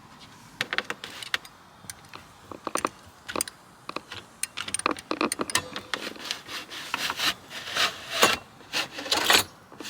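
Irregular clicks, taps and scraping as hand tools work the hinge pin and spring out of a truck's plastic center console lid, with a few longer rubbing scrapes near the end.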